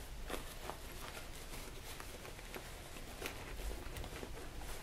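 Faint rustling and rubbing of cotton fabric, with a few light ticks, as a sewn bag is pulled right side out through the opening in its lining.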